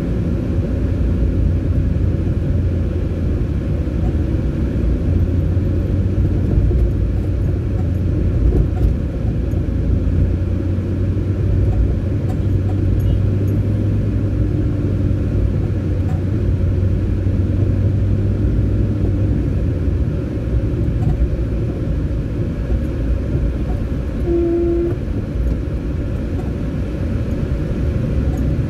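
Steady low rumble of a moving car, with engine and road noise heard from inside the cabin, heaviest through the middle.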